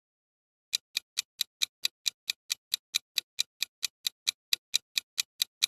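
Quiz countdown timer sound effect: a steady run of sharp clock-like ticks, about four or five a second, starting under a second in.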